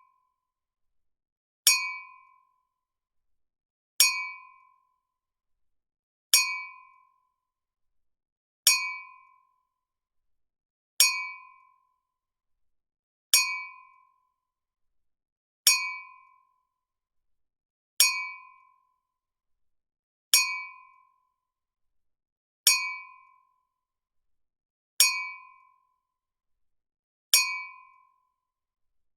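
Two wine glasses clinking together, one bright ringing clink about every 2.3 seconds, twelve times. Each clink dies away within about half a second.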